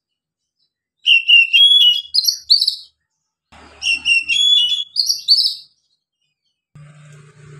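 Male Oriental magpie-robin singing: the same short whistled phrase, stepping upward in pitch, repeated three times, the first starting about a second in.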